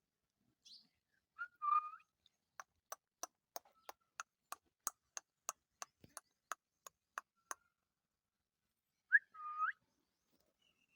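Indian ringneck parrot giving two short whistled calls, one about a second and a half in and one near the end. Between them comes a run of about sixteen sharp, evenly spaced clicks, roughly three a second.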